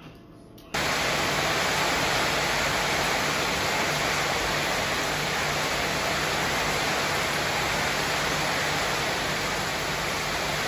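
Heavy rain falling on a corrugated metal carport roof: a steady, dense rush of noise that starts suddenly under a second in.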